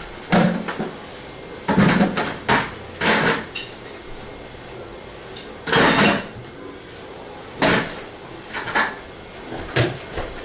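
A series of irregular knocks and clunks, about eight, as objects and equipment are handled, moved and set down by workers.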